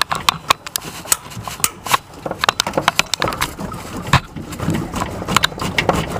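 Hands working a rubber lower radiator hose loose from the water pump, with many irregular clicks, knocks and rubbing.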